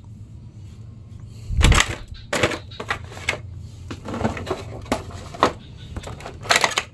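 Clear plastic blister packaging crackling and clicking in irregular bursts as it is handled, the loudest about two seconds in.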